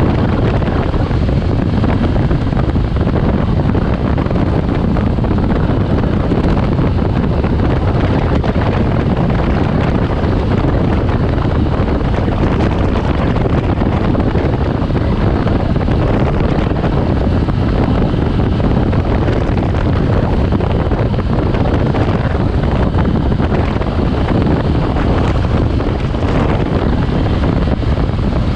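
Motorcycle under way: steady wind noise on the microphone over the engine running.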